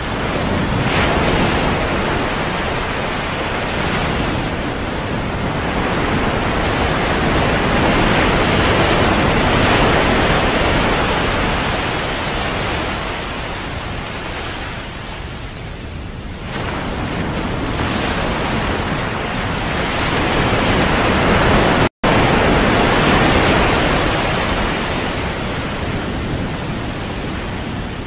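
Sea waves washing onto the shore, the surf swelling and easing in long surges lasting several seconds. About two-thirds of the way through, the sound cuts out for an instant.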